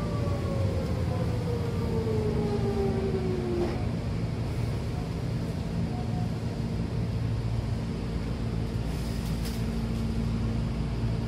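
Hankyu electric train slowing to a stop, heard from inside the car. The traction motors' whine falls steadily in pitch and cuts out about three and a half seconds in, over the steady low running hum of the car. A couple of faint brief hisses or clicks come near the end.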